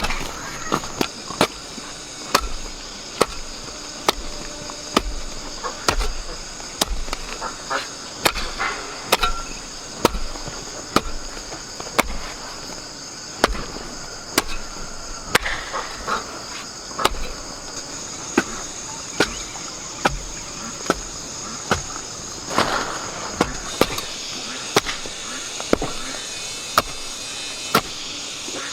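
Insects trilling steadily, with sharp knocks repeated roughly once a second throughout.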